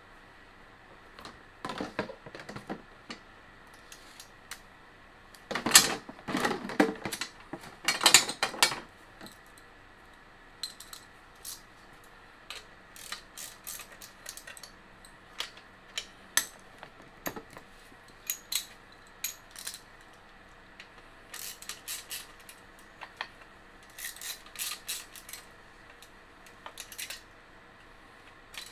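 Socket wrench, bolts and washers clinking and rattling against a steel engine bracket as it is fitted. Scattered sharp metal clicks throughout, with the loudest clatter about six to nine seconds in.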